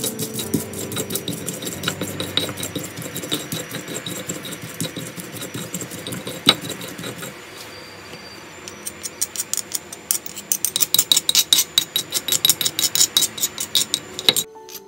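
Stone pestle grinding young corn kernels in a stone mortar (cobek and ulekan), stone scraping on stone, with one sharp knock about six and a half seconds in. From about eight and a half seconds in it turns to a fast, even run of knocks, about six a second, that stops abruptly near the end.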